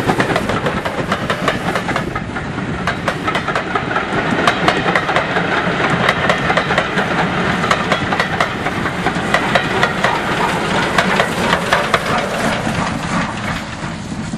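Steam-hauled passenger train passing close by: coach wheels clatter over the rail joints, mixed with steam locomotive exhaust and hiss. The noise fades away near the end as the train draws off.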